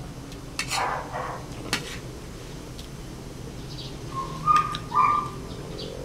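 Eating sounds: chewing and a few sharp clicks of spoon and fork on a plate, then two short, steady whistle-like notes about four and a half and five seconds in.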